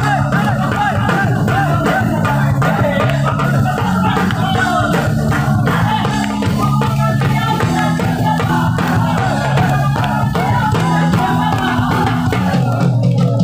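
Live band music at concert volume: a female singer singing into a microphone over electric guitar and drums, played loud through the stage sound system.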